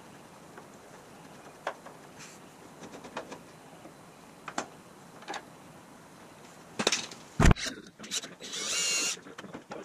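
Light metal clicks and taps of a screwdriver working at a steering column flange, then a loud knock. Near the end comes a brief whir of a cordless drill.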